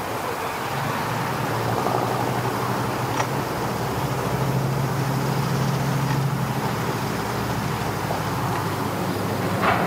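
An engine running steadily with a low hum that swells a little in the middle, and a short sharp sound near the end.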